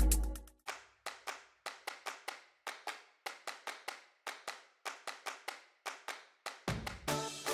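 Short, sharp percussive clicks like claps, about three to four a second, in a sparse rhythmic pattern between passages of electronic background music, which comes back in near the end.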